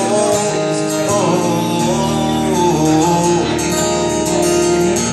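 Folk song music: acoustic guitar accompaniment with a melody line carrying on between sung lines.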